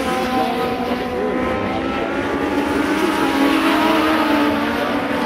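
Several Legends race cars' engines running hard around a short oval, their pitches rising and falling as they lap.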